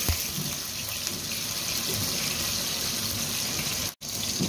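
Chicken fillet sizzling steadily as it shallow-fries in hot oil in a nonstick wok, with a light knock right at the start. The sizzle breaks off for an instant near the end.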